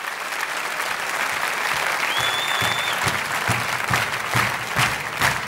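Concert audience applauding, with one sustained whistle about two seconds in. A steady low thumping beat starts under the clapping about two seconds in.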